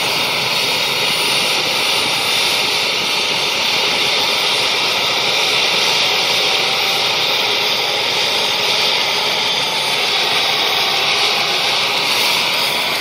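Mil Mi-17 helicopter's turbine engines starting up: a loud, steady, high turbine whine and rushing hiss while the main rotor turns slowly.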